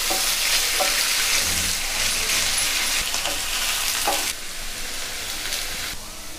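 Raw potato sticks sizzling in hot oil in a nonstick frying pan, stirred with a wooden spatula that knocks against the pan a few times. The sizzle drops lower after about four seconds.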